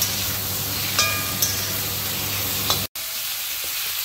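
Chicken pieces sizzling in hot olive oil in a cast-iron kadhai, with a metal spatula striking the pan four times, each strike ringing briefly. The sound drops out for an instant about three seconds in, then the sizzling carries on.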